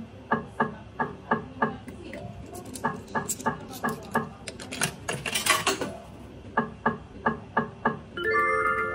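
Video slot machine's spin sounds: a steady run of sharp electronic clicks, about three a second, as the reels spin and stop. A denser clatter comes about five seconds in, and a short chime of held tones sounds near the end.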